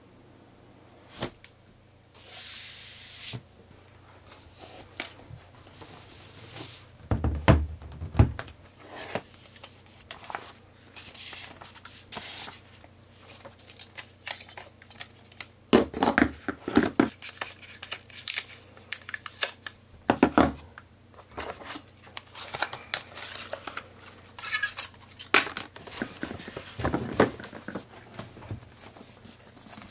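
Cardboard and paper packaging of a new Apple MacBook Pro being opened by hand: a tearing sound lasting about a second near the start, then rustling, crinkling and clicking of card and paper, with several thuds as the box, inner tray and paper-wrapped laptop are handled.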